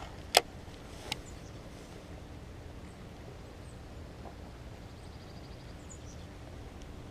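Quiet steady outdoor background with a sharp click about half a second in and a softer one a second in, and faint high chirps in the second half.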